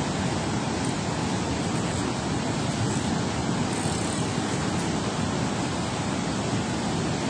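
Steady rushing of water churning below a dam spillway.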